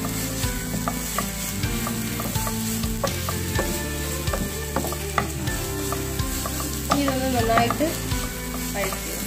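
Sliced onions, curry leaves and coriander leaves sizzling in oil in a non-stick frying pan while a spatula stirs them, scraping and tapping against the pan; the onions are being sautéed until soft. A short wavering tone sounds about seven seconds in.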